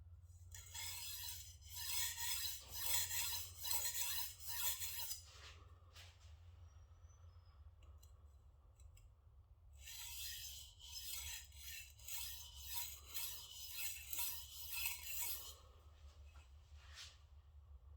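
Shigeki Tanaka 180mm gyuto knife being sharpened on a whetstone: rhythmic scraping strokes of steel on stone, about two a second. There are two runs of strokes, with a pause of about four seconds between them.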